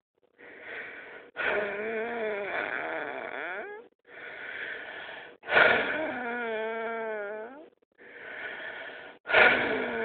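A person's deep breaths making a strange wheezing noise, three times: each breath is a breathy rush of about a second, followed by about two seconds of a pitched, wavering whine.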